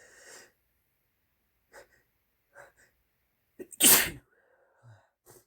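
A person sneezing once, loudly, a little under four seconds in, after a few short breathy sounds of the buildup. A brief quieter sound trails the sneeze, and a short breath follows near the end.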